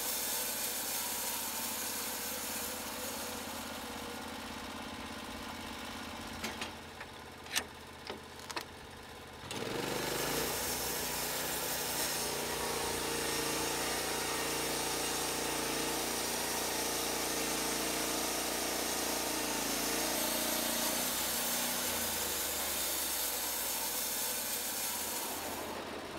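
Small engine running steadily, with a few sharp knocks about seven to nine seconds in. From about ten seconds in, a louder, steadier engine sound takes over.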